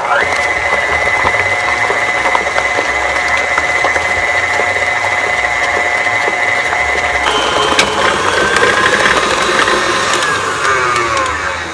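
Electric stand mixer running, its flat beater working a thick ground turkey meatball mixture in a steel bowl, with a steady motor whine. About seven seconds in the whine changes pitch, and near the end it falls as the mixer slows.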